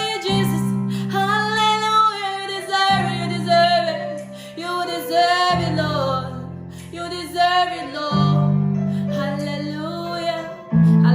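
Worship music: a singer's voice gliding through long held phrases over sustained low accompaniment notes, which change about every two and a half to three seconds.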